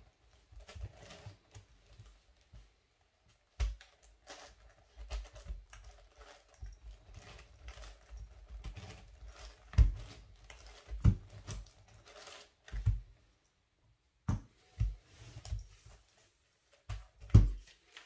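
DianSheng Galaxy 13x13 magnetic Rubik's cube being turned by hand, its plastic layers clicking irregularly as the last moves of the solve go in. Several louder thumps come as the cube is knocked and handled against the mat.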